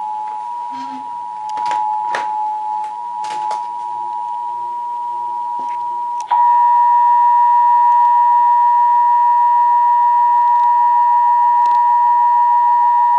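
Emergency Alert System attention signal: a steady two-tone beep of two close pitches sounding together. It runs through with a few sharp clicks in the first half, then about six seconds in it jumps much louder and harsher and holds steady.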